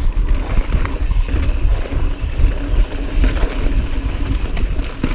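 Wind buffeting on an action camera's microphone as a mountain bike descends fast on a loose, dusty dirt trail, with tyre noise and scattered clicks and rattles from the bike over the bumps.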